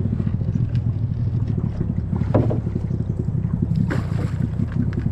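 A small river boat's motor running steadily, a low rumble, with wind buffeting the microphone.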